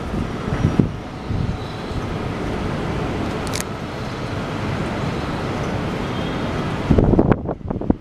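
Steady hum of city traffic heard from high above the streets, with wind buffeting the microphone, hardest near the end.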